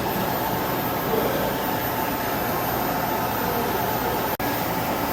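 Steady hum and hiss of running pump-room machinery, likely the booster pump set, with a faint steady whine. The sound cuts out for an instant about four seconds in.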